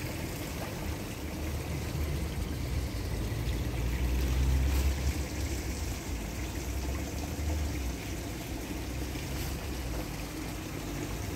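Water trickling and running in an aquaponic system, with a low rumble underneath that swells about four to five seconds in.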